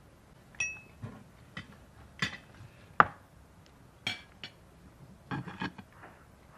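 Tableware clatter: a large knife knocking and scraping on a metal roasting tray and a plate while roasted ribs are carved, with clinks of glass and cutlery. A string of sharp clicks, one ringing clink near the start, the loudest about three seconds in and a quick run of them near the end.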